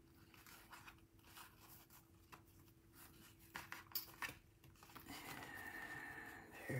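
Near silence with faint rustling and small scratchy ticks of ribbon being handled and pulled through the fingers while a bow is tied around a paper box.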